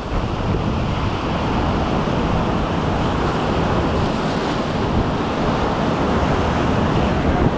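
Steady wind noise buffeting the microphone, mixed with ocean surf washing in.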